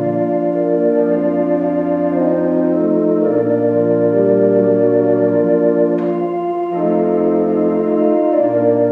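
Church organ playing slow, sustained chords over a bass line that moves to a new note every second or two. A brief click about six seconds in.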